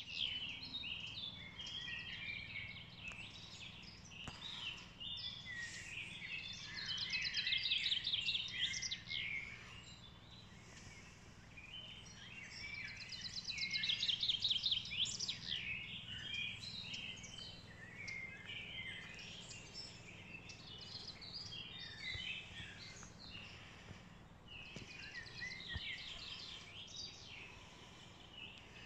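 Woodland birdsong, several songbirds singing at once, with loud rapid trills about seven, thirteen and twenty-five seconds in.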